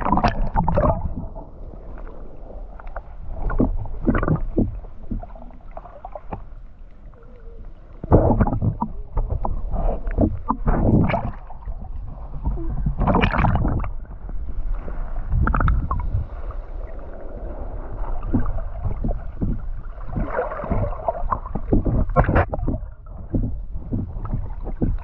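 Water sloshing and splashing around an action camera held at the water's surface, coming in irregular surges.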